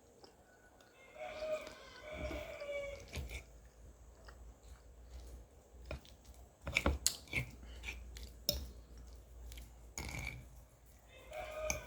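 A rooster crowing twice, once about a second in and again near the end, with chewing and a few sharp clicks of eating in between.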